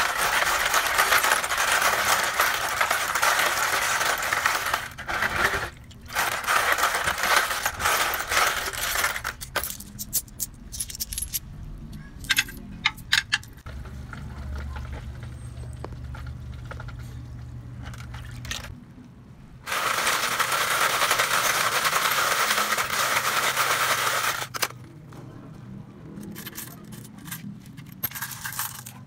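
A pile of mixed coins stirred and raked by hand in a plastic basin: three long stretches of dense jingling clatter, with scattered single clinks between them and near the end.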